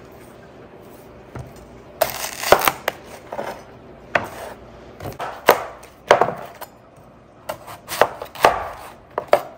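Knife chopping on a cutting board: a string of sharp, irregular strokes, about one or two a second, starting about two seconds in.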